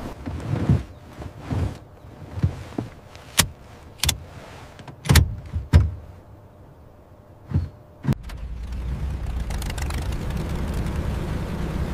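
A string of sharp mechanical clicks and clunks, like latches and switches in a P-51 Mustang's cockpit being worked. About eight seconds in, a steady low rumble starts and builds.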